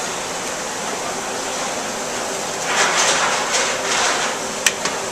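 Steady hiss of commercial kitchen ventilation. About two and a half seconds in, sauce is poured from a small copper saucepan, a short rush lasting under two seconds, and a single sharp click follows near the end.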